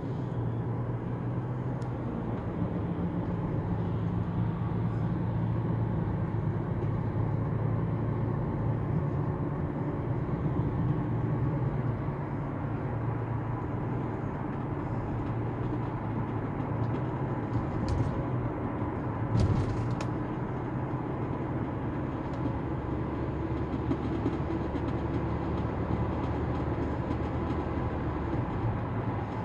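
Steady low rumble of a moving vehicle, with one brief knock about two-thirds of the way through.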